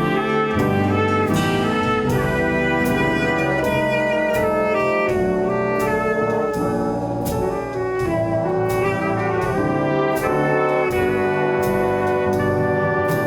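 Instrumental music played by a band with brass instruments in front, trumpets prominent, over a steady beat.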